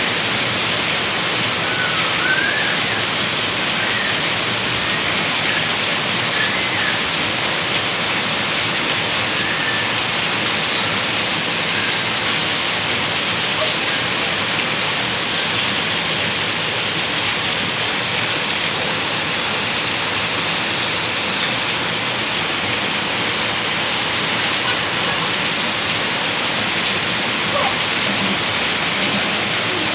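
Rain pouring down steadily onto wet concrete, an even unbroken hiss.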